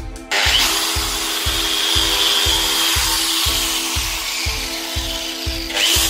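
Angle grinder with an abrasive disc stripping paint off a steel gas cylinder down to bare metal, a loud continuous grinding that starts about a third of a second in. It dips briefly and starts again just before the end.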